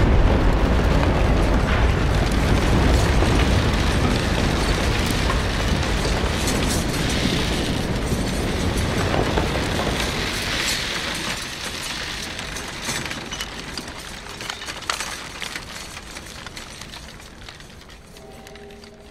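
Loud, dense rumbling roar that sets in suddenly and slowly fades, with scattered sharp clicks running through it.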